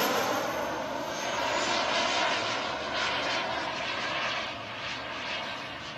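Turbine engine of a radio-controlled model jet in flight just after a fast low pass: a steady rushing jet noise with a high whine, fading slowly as the plane pulls away.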